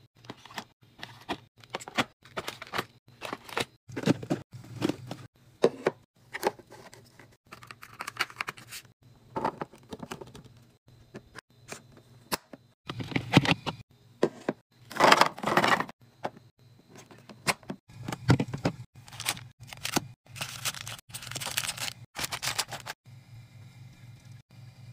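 Food packaging and containers being handled: a quick run of clicks, crinkles and light knocks, with a few louder rustling bursts about halfway through and again later.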